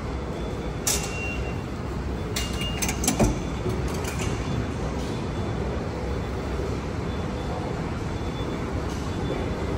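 Subway fare gate in use: a click with a short beep from the OMNY card reader about a second in, then a cluster of clicks and short beeps and a loud clunk of the turnstile about three seconds in, over the steady low rumble of the station.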